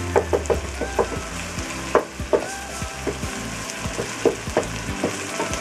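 Chopped onion, peppers and celery sizzling in oil in a stainless steel pot while being stirred with a wooden spoon, which knocks and scrapes against the pot at irregular moments.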